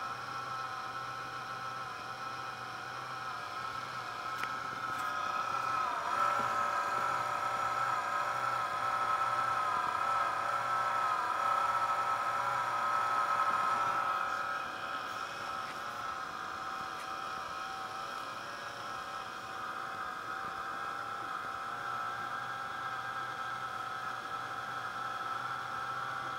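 Replacement cooling fan of an NEC VersaPro VY12F laptop running with an abnormal whining noise made of several steady tones over a faint low hum, growing louder for several seconds in the middle and easing back. The new fan is faulty, noisy from its first power-on.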